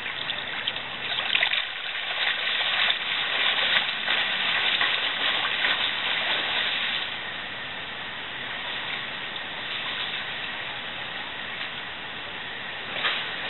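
Water splashing from a person swimming across a pool, loudest over the first several seconds and then settling to a steadier, quieter wash of water, with a short louder splash near the end.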